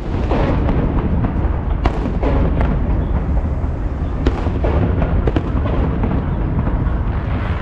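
Fireworks display going off: a rapid, irregular string of bangs and crackles over a continuous low rumble.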